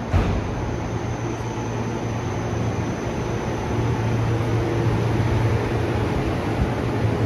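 E353 series electric train running alongside a station platform: a steady rumble of wheels with an electric hum, a faint high whine in the first few seconds, and a brief thump just after the start.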